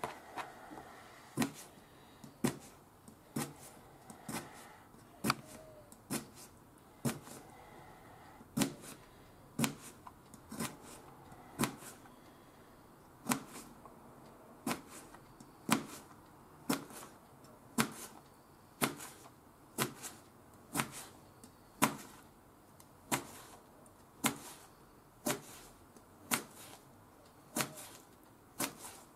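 Kitchen knife slicing a cucumber on a plastic cutting board, with a sharp tap of the blade hitting the board about once a second in a steady rhythm.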